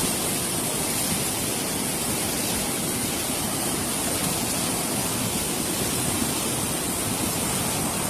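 Flash-flood torrent rushing past, a steady, even rush of fast-moving water without a break.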